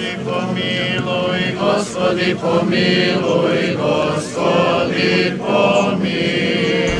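Serbian Orthodox liturgical chant sung by a group of voices, held notes in unison over a steady low tone.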